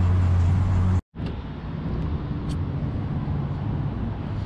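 Steady low drone of a car's engine and road noise, heard from inside the cabin while driving on a freeway, cut off abruptly about a second in. Then a quieter, even outdoor traffic rumble with a faint click near the middle.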